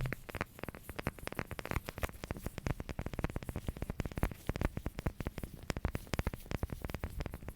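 Rapid, irregular tapping on a hard object, many small clicks a second.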